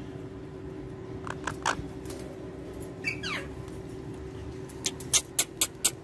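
Indian ringneck parakeet giving a few short chirps about a second in and a falling squeak around three seconds, then a quick run of sharp clicks near the end, over a faint steady hum.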